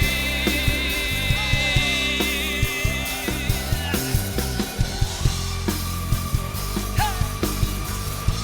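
Instrumental pop-rock music with a steady drum beat, bass and guitar, playing between sung lines.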